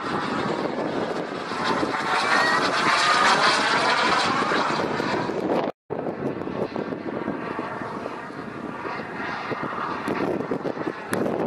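Radio-controlled model jet's K-180G2 turbine, a steady jet rush and whine as the plane flies overhead, with a sweeping, phasing hiss as it passes in the first half. The sound breaks off for an instant just before the middle, then continues as a steadier, slightly quieter rush.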